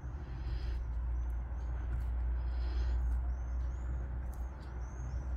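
A plastic scratcher scraping the coating off a lottery scratch card in two short strokes, over a steady low rumble. High bird chirps come several times in the second half.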